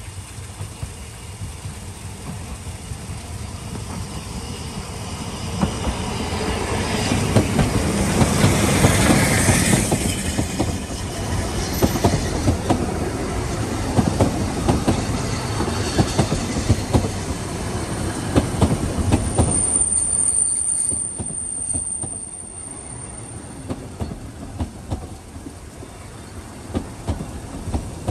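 Narrow-gauge steam train, locomotive Mountain Spirit, passing close by. Its exhaust beats build to a peak as the engine goes past about a third of the way in, then the carriages roll by with a run of wheel clicks and, a little past the middle, a high wheel squeal lasting a few seconds.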